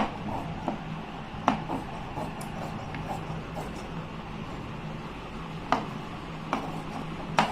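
Tailor's scissors cutting through fabric: a few sharp snips of the blades, spaced out, over a steady low hum.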